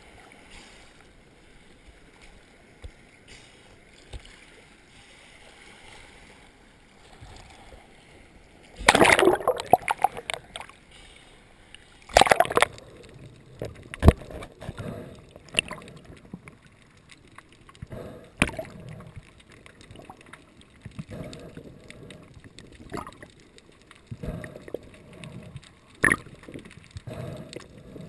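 Water splashing and sloshing close to the microphone in irregular bursts. The first eight seconds or so hold only a low steady wash, and the loudest splashes come about nine and twelve seconds in.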